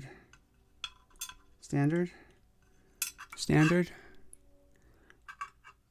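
Small metal lock pins and tools clicking and clinking lightly against each other and a hard surface, in scattered taps. Two short murmured voice sounds come about two and three and a half seconds in.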